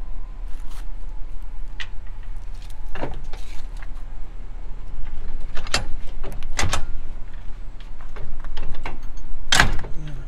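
Metal clanks and knocks as a boat trailer's coupler is worked onto the tow vehicle's hitch ball: four sharp knocks with lighter clicks between, the loudest near the end, over a steady low hum.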